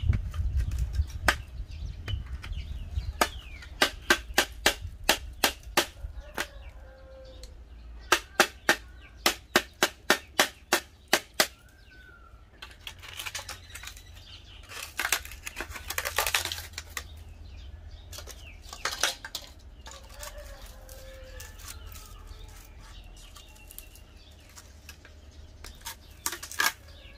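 Long-nose pliers working a metal gas-stove part: two quick runs of sharp metallic clicks, about three a second, then a few seconds of rasping scraping and a few scattered clicks.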